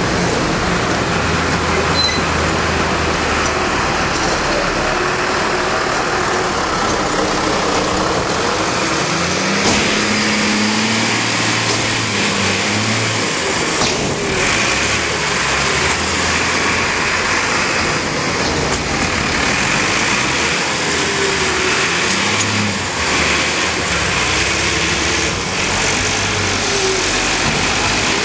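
Farm tractor diesel engines working under load over a steady loud rushing noise, with the engine pitch rising and falling as they change speed.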